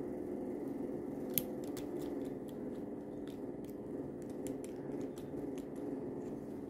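Joints of a 1/48-scale Riobot Legioss action figure clicking as its legs are bent by hand, with light handling of the plastic parts. The clicks are short and scattered, with a louder one about a second and a half in, over a steady low hum.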